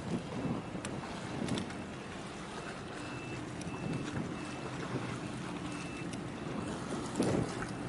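Low steady hum of a large container ship's engine under way, heard across the water, with wind buffeting the microphone in gusts.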